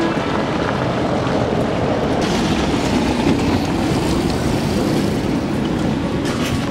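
Electric tram running: a steady, loud rail-vehicle noise, heavier in the low end, that turns hissier about two seconds in, with a few faint clicks near the end.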